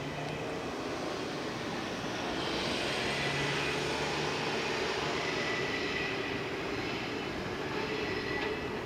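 Electric train of the Okayama depot's A10 set approaching from a distance: a steady running drone that grows a little louder partway through.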